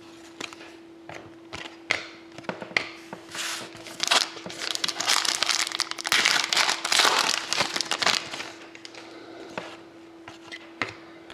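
A foil trading-card pack wrapper being torn open and crinkled by hand, loudest from about four seconds in to past eight seconds, with light clicks and slides of cards being handled before and after.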